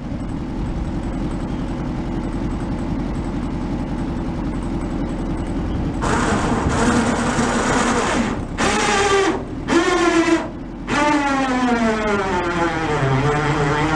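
Winch pulling its cable under load: a steady low hum, then about six seconds in a motor whine that cuts out and starts again a few times before sinking in pitch as the load comes on and climbing again.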